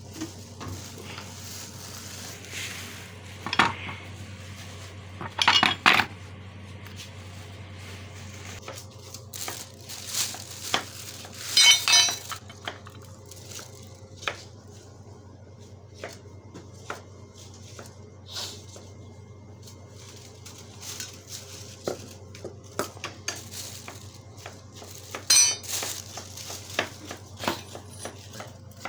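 Repeated metallic clinks and clatter of metal tools and parts being handled, with several louder rattling bursts, over a steady low hum.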